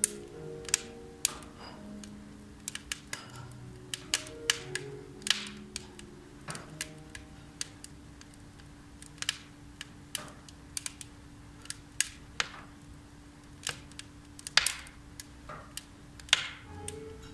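Wood fire crackling in a fireplace, with irregular sharp pops and snaps, a few of them louder near the end, over soft background music.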